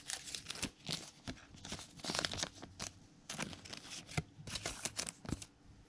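2021 Bowman Platinum baseball cards being flipped and slid against one another by hand: a run of short, irregular rustling scrapes that stops near the end.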